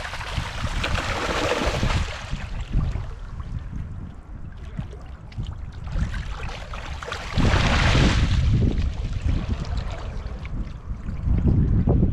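River water rushing and splashing, with two louder splashing surges, one about a second in and one around eight seconds in. A low rumble of wind buffets the microphone throughout.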